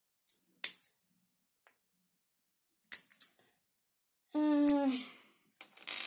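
Plastic Lego bricks clicking as pieces are handled, in a few separate sharp clicks. A short falling hum of a voice comes about four and a half seconds in.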